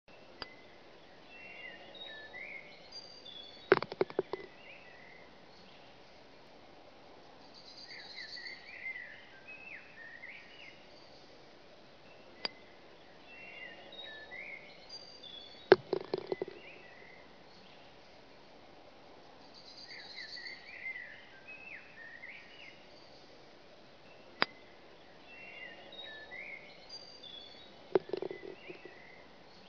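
Golf putt sound effects, three times over: a sharp click of a putter striking the ball, then about three seconds later the ball dropping into the cup and rattling briefly. Birds chirp and twitter in the background.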